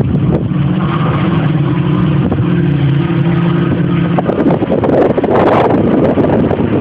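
Jet ski engine running at a steady pitch for about four seconds, then giving way to wind rumbling on the microphone.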